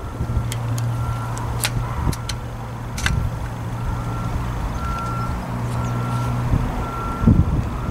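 A vehicle's engine running steadily, with a short high beep repeating about once a second, like a reversing alarm, and a few sharp clicks in the first few seconds.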